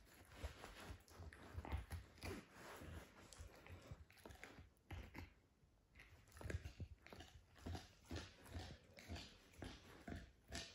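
Puppy chewing and biting on a rawhide bone: an irregular run of wet gnawing and crunching, easing briefly about halfway through and then picking up again in steadier chews.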